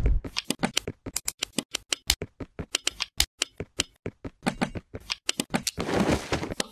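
Plastic Lego bricks clicking and snapping together in quick, irregular succession, with a short rustle near the end.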